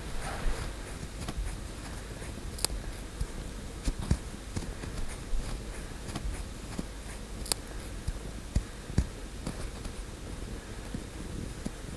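Ear pick scraping and picking at the skin of the outer ear, close-miked, giving irregular soft scratches and small crackling clicks, with two sharper clicks, one a few seconds in and one past the middle.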